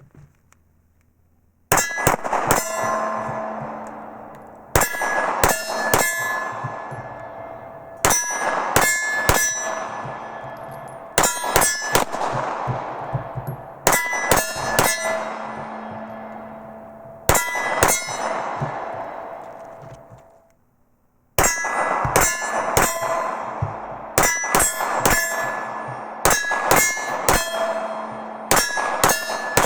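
Sig Sauer P320 9mm pistol fired in quick strings of shots, a new string every few seconds. Each string is followed by a long metallic ringing at the same few pitches that slowly dies away. The shooting runs almost without pause in the last third.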